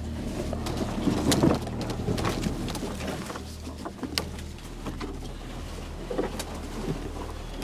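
Canoe carried overhead through thick brush on a portage: branches and twigs scraping, snapping and clicking against the hull and underfoot, with scattered sharp snaps over a steady low rumble.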